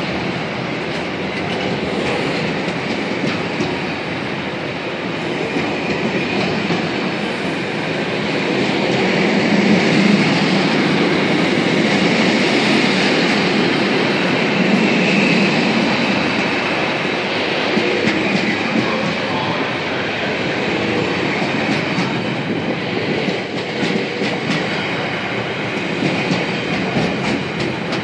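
Container freight train wagons rolling past, a steady rumble of steel wheels on the rails that swells a little about ten seconds in.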